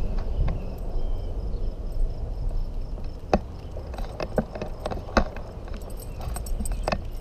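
Bicycle rolling along a paved street: a steady low rumble of tyres and wind, with scattered sharp clicks and rattles, a few clear ones spread through the ride.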